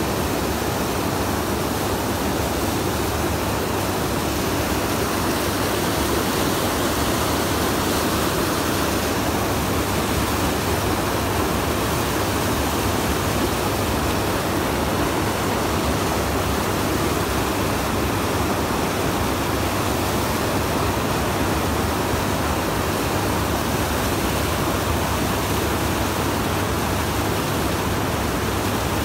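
Whitewater in a fast river current, rushing steadily and loudly close by.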